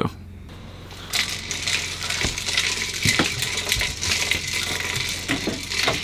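Ice-fishing rattle reel going off: a continuous metallic rattling and clinking from about a second in, the signal that a fish has taken the bait and is pulling line. A low steady hum sits underneath.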